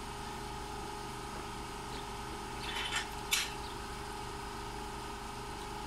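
Steady drone of an engine running at constant speed, several pitched tones held level, with two short sharp knocks about three seconds in.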